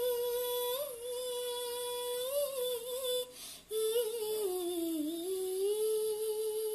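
A girl singing unaccompanied, drawing out a long wordless note for about three seconds. She takes a quick breath, then holds a second long note that dips in pitch about five seconds in and rises back.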